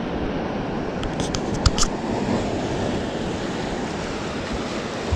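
Ocean surf washing against a rocky shore, a steady rush of noise, with a few short sharp clicks between one and two seconds in.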